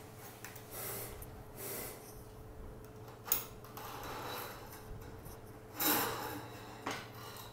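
Faint handling noise of steel rifle parts as the follower rod and operating rod spring are worked loose from an M1 Garand's receiver: light rubbing, a small click about three seconds in, a louder scrape near six seconds and another click just after.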